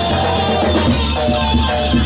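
A live band playing: drums and a steady bass under a melody of held notes.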